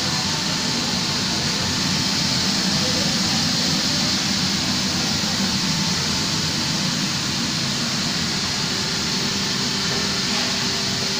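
Steady loud rushing background noise with a faint hum, unchanging and with no distinct events.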